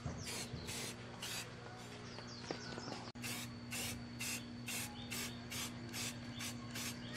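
Aerosol spray-paint can hissing in short, quick bursts, about three a second, as paint is sprayed onto a diesel engine's cast-iron flywheel and pulley. A steady low hum runs underneath.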